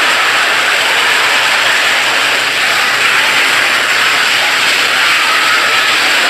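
Many copies of a scream sound effect stacked on top of each other, merging into a loud, steady, hissing roar with no breaks.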